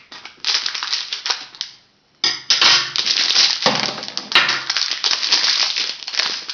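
Plastic packaging crinkling and crackling as a bag is cut open and an item is pulled out of its plastic wrap. The crackling breaks off briefly about two seconds in, then resumes denser.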